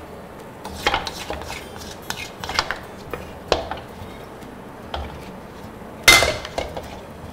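Utensils scraping and knocking against a metal wok and a stainless steel pot while sticky radish-cake batter is transferred: irregular clinks and scrapes, the loudest clank about six seconds in.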